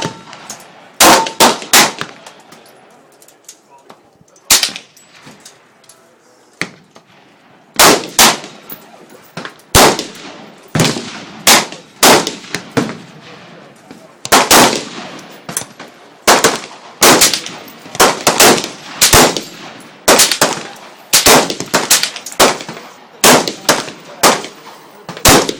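Remington 597 semi-automatic .22 LR rifle firing shot after shot, sharp cracks each with a short echo. A few shots come early, then a couple spaced out, then a steady string of roughly one to two shots a second through the second half.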